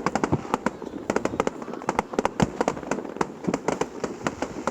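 Fireworks display going off: many shell bursts and crackling reports in rapid, irregular succession, several a second, heard across open ground.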